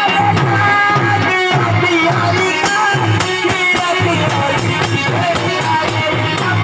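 Live instrumental accompaniment for Odia Bharata Lila folk-theatre dancing: an electronic keyboard melody over a steady, evenly repeating drum beat, with sharp strikes of small hand cymbals.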